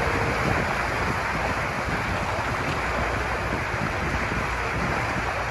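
Steady rushing noise of water and wind from a boat under way on a lake, with wind buffeting the microphone.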